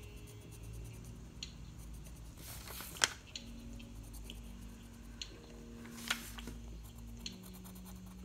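2B graphite pencil scratching on sketchbook paper in short strokes as it darkens drawn lines, with two louder strokes about three and six seconds in, over a faint low hum.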